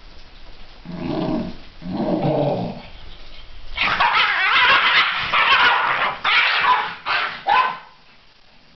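Basenjis play-fighting: two low growls about one and two seconds in, then a loud run of high-pitched yelping cries that ends in two short yelps.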